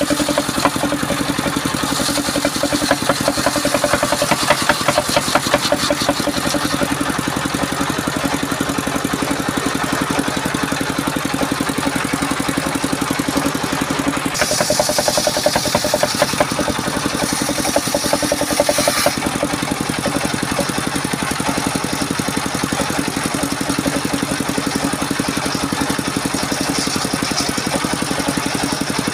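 Diesel engine running steadily, driving a large circular saw blade that rips through a waru log. The hiss of the blade cutting the wood rises over the engine in stretches, most strongly about halfway through.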